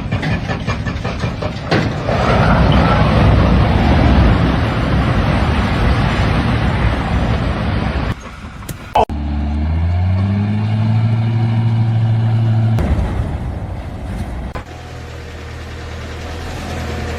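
Heavy truck engines running across several short clips. About ten seconds in, one engine revs up and then holds a steady pitch before the sound cuts off abruptly.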